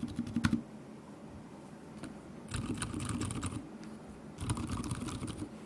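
Typing on a Drop Shift mechanical keyboard fitted with case and plate foam: quiet keystrokes in short bursts with pauses between, and a heavier stroke about half a second in.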